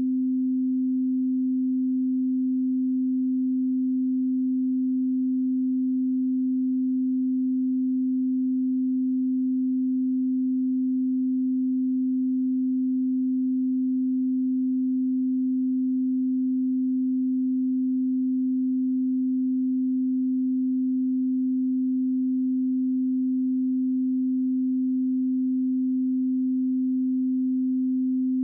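Steady 258 Hz pure sine tone, a calibration test signal, holding one pitch at an even level.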